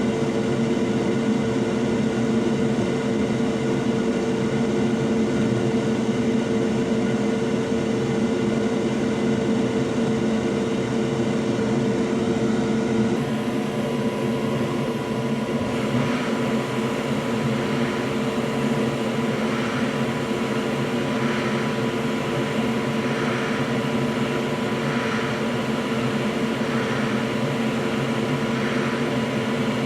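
Steady machine hum with a pitched whine from repair-bench equipment. About halfway through, more hiss joins, and then a faint pulsing comes every couple of seconds.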